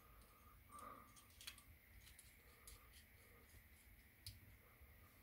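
Faint, scattered clicks and small taps of Badger Patriot 105 airbrush parts being handled as the needle and rear handle are fitted, with a soft rustle of hands about a second in.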